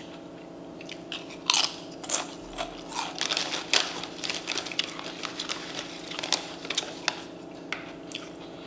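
A Doritos bag crinkling as a hand reaches in and the tortilla chips crunching, heard as a run of sharp crackles for several seconds starting about a second and a half in. A faint steady hum lies underneath.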